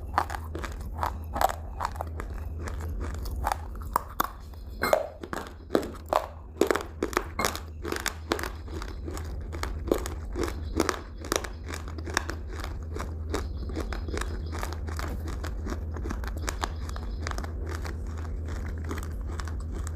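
Close-miked crunching of crisp food being bitten and chewed: a rapid run of sharp crunches that thins out and grows fainter about halfway through.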